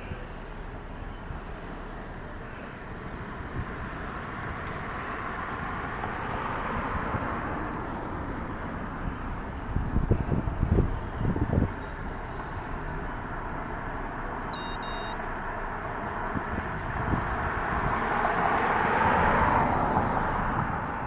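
Road traffic with vehicles passing: the noise swells about six seconds in and again near the end. A few heavy low thumps come around ten seconds in, and a short electronic beep about fifteen seconds in.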